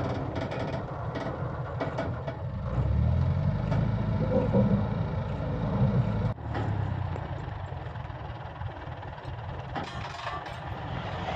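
Diesel engine of a wheeled railway crane running while it lays concrete sleepers, working harder for a few seconds and then changing abruptly about six seconds in. A few light clinks sound in the first two seconds.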